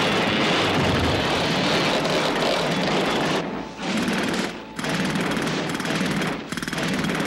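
Cartoon jackhammer sound effect: a pneumatic jackhammer pounding in a loud, rapid rattle, breaking off briefly a few times after the midpoint.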